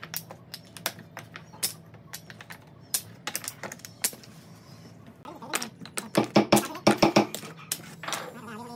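Small loose wooden inlay pieces clicking and clacking as they are lifted out of a pine panel and set down against one another, with a quick flurry of louder wooden knocks about six to seven seconds in.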